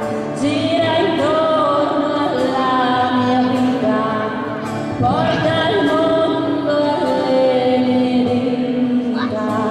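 A woman singing into a microphone and accompanying herself on strummed acoustic guitar, with long held notes and a new phrase starting about halfway through.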